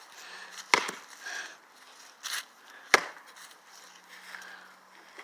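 Two heavy hammer blows into a rotten, wet tree stump, about two seconds apart.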